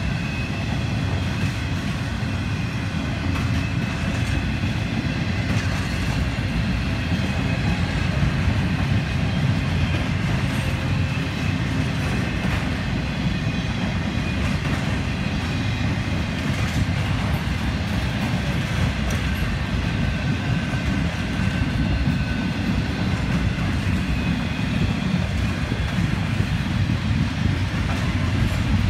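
Empty intermodal well cars of a freight train rolling past: a steady rumble of steel wheels on the rails with clickety-clack over the joints and a faint high ringing from the wheels.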